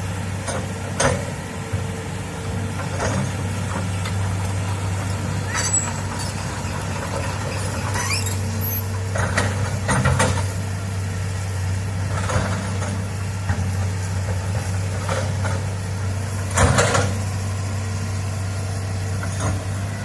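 Hitachi excavator's diesel engine running steadily, with irregular knocks, creaks and short squeaks of the machine at work, the loudest knock near the end.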